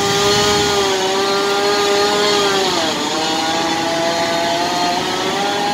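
Gas-powered firefighter's roof saw running hard while cutting a ventilation opening in a house roof; its pitch sags about three seconds in, then levels off.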